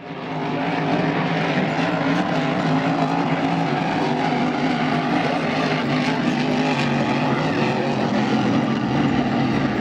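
Racing boat engines running at a steady high drone.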